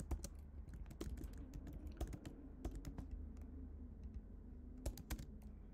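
Computer keyboard typing in irregular runs of keystrokes. The keys thin out after about three seconds, then a few more come near the end.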